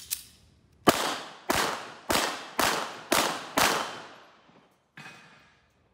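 Handguns firing: six shots in quick succession about half a second apart, each with a long echoing tail, then one fainter shot about five seconds in.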